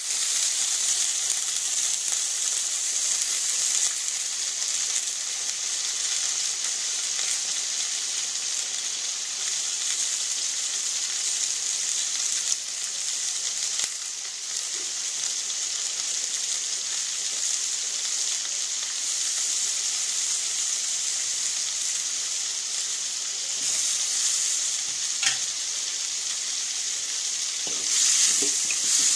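Bitter gourd pieces frying in hot oil in a metal wok, a steady sizzle. Near the end a spatula stirs and scrapes against the pan.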